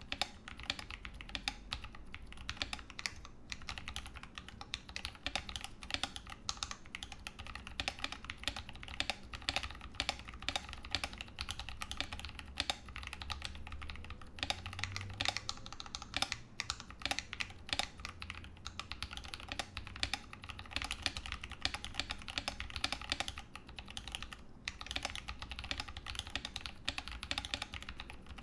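Continuous fast typing on a Ramaworks M60-A mechanical keyboard with original Holy Panda tactile switches under GMK Pristine keycaps, the case dampened with an internal weight and Sorbothane. A dense run of keystroke clacks with a few brief pauses.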